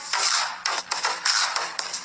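Electronic dance music with a strong, regular beat, sharp noisy hits coming about twice a second.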